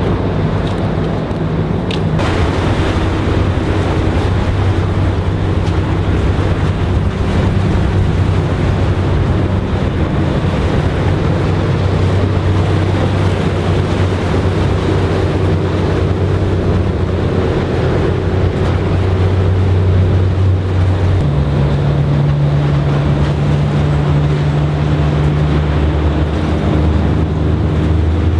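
Boat engine running with a steady low hum; its pitch shifts about twenty seconds in.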